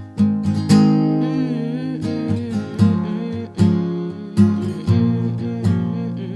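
Acoustic guitar strummed and picked in a steady rhythm, chords ringing between the strokes, with no singing.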